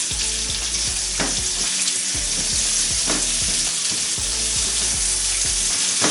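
Onions and leeks sizzling steadily in hot groundnut oil in a wok, softening, with a few brief clicks.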